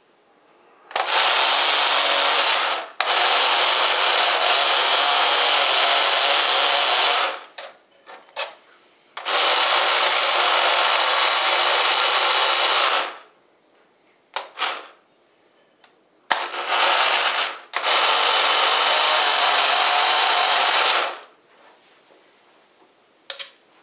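Operation board game's electric buzzer going off in harsh buzzes, each set off when the tweezers touch the metal edge of a cavity and light the patient's red nose. About five buzzes of one to four seconds each, starting and stopping abruptly, with a few short blips between them.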